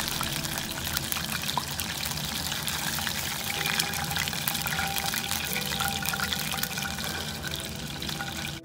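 Chicken pieces deep-frying in hot oil in a wok, the oil sizzling and crackling steadily as the fried pieces are lifted out with a slotted spoon. The sizzle cuts off abruptly at the very end.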